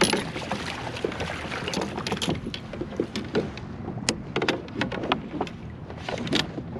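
Water sloshing around a plastic fishing kayak while a fish is netted, with a string of sharp knocks and clicks as the aluminium landing-net handle and gear bump the hull, bunched most thickly in the second half.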